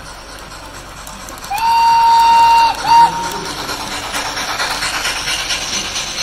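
Sampled steam whistle from the ESU LokSound V5 sound decoder of a Rivarossi Gr741 H0 model steam locomotive: one long blast about a second and a half in, then a short blast. It is followed by a rhythmic clatter as the model train runs past.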